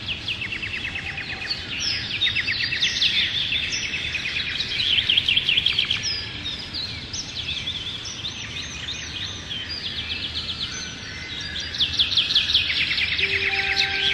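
Several songbirds singing at once, a dense chorus of fast repeated trills and chirps. A soft sustained music pad lies underneath and swells into clearer held notes near the end.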